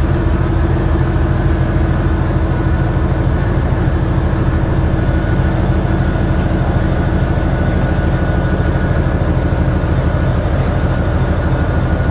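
The 10D100 two-stroke opposed-piston diesel engine of a 2TE10M diesel locomotive running steadily: a deep, even drone that holds the same pitch.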